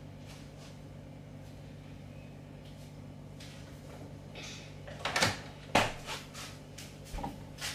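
Refrigerator door being shut, with two sharp knocks a little after five seconds in as it swings closed and seals, over a steady low hum. A few faint clicks and rustles of rummaging come first.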